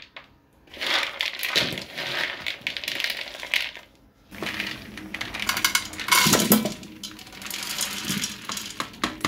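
Maize kernels being rubbed off the cob by hand, clattering and rattling in a hard scatter of clicks into a plastic bowl, pausing briefly about four seconds in. Near the end a bowlful of kernels is tipped into a cooker pot.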